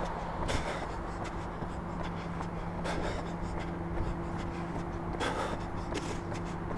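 Rustling and scraping of a body-worn camera rubbing against clothing as the wearer runs, with a few sharper scrapes, over a steady low hum and rumble.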